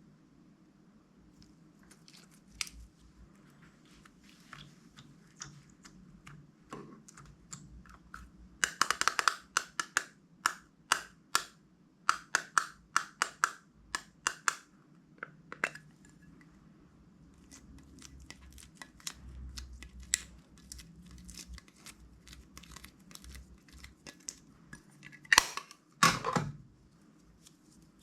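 Slime being squished and worked by hand: runs of short sticky clicks and pops, densest about nine and thirteen seconds in, with two louder squelches near the end.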